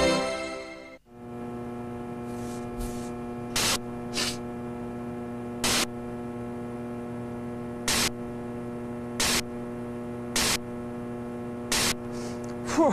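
The closing theme music fades out in the first second, then a steady electrical mains hum or buzz takes over. Short bursts of hiss, like static crackle, break into it every second or so.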